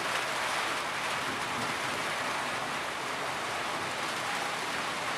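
Steady rain falling, an even hiss with no separate drops or other events standing out.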